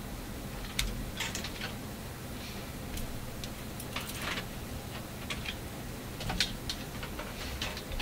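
Irregular light clicks, taps and brief scrapes of wires and small hand tools being handled on a workbench.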